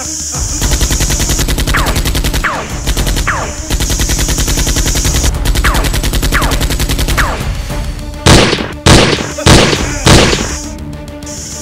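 Rapid automatic gunfire in long bursts with brief breaks, then four loud single shots near the end.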